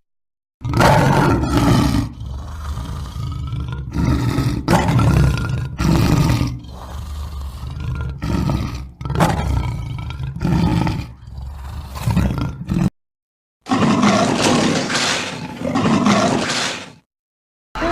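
Animated predator-dinosaur roar sound effects: a string of loud, repeated roars and snarls for about twelve seconds, a short break, then one more roar lasting about three seconds.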